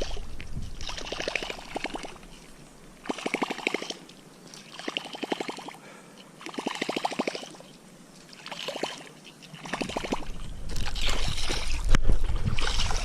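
Fishing reel being cranked in short bursts, each a run of rapid ticking, about one burst every two seconds, as in a stop-and-go topwater lure retrieve.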